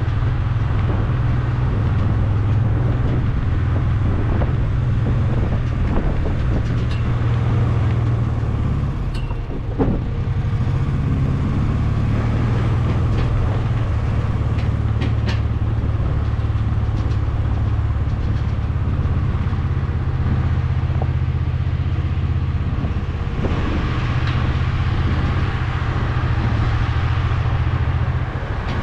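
A farm vehicle's engine running steadily with a low hum, with scattered clicks and rattles over it.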